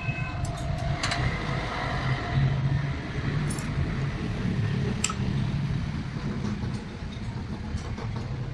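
Steady low machine rumble, with a few sharp metallic clicks about a second in and around five seconds.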